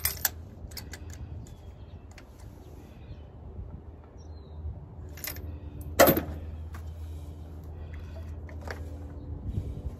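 Scattered clicks and light knocks of parts being handled in a car's engine bay during a spark plug change, with one sharper click about six seconds in, over a steady low hum.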